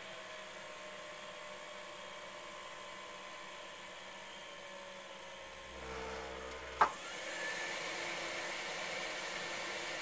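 Takagi T-K3 tankless gas water heater running, a steady fan-like rush with a slowly falling whine. About seven seconds in, a low hum ends in a sharp click, after which the unit runs louder with a higher whine.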